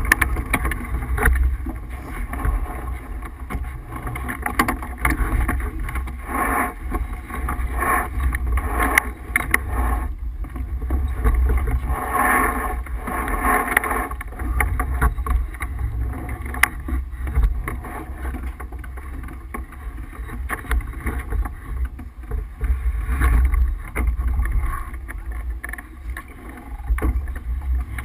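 Steady rushing noise aboard a Tripp 37 sailboat under way: wind buffeting the microphone, with water rushing along the hull. It rises and falls in gusts.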